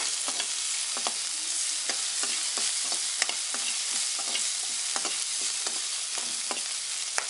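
Onions, cumin seeds and ginger-garlic paste sizzling in hot oil in a wok, with a steady hiss of frying. A spatula stirs them, clicking and scraping against the pan two or three times a second.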